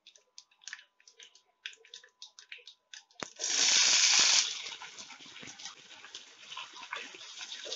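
Mustard seeds crackling and popping in hot oil with cumin and dried chillies, a tempering that has reached popping heat. About three seconds in, chopped onions and green chillies are tipped into the hot oil with a loud, brief burst of sizzling that settles into a softer sizzle as a metal slotted spoon stirs them.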